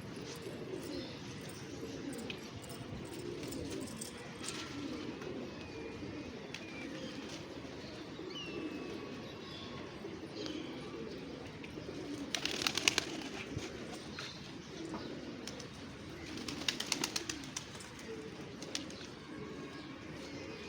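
Pigeons cooing continuously in a low, steady murmur, with a few faint high chirps. Two short bursts of rapid clattering stand out, about two thirds of the way in and again a few seconds later.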